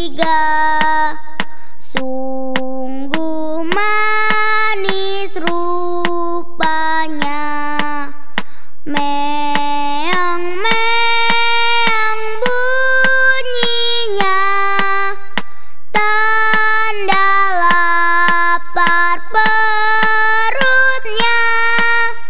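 A child's voice singing an Indonesian children's song over a backing track with a steady clicking beat, about two clicks a second.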